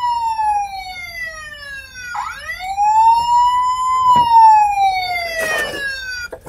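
Electronic police siren from a My First Tonka Wobble Wheels toy police car, wailing: the pitch slides slowly down, sweeps back up about two seconds in, then slides down again and cuts off near the end.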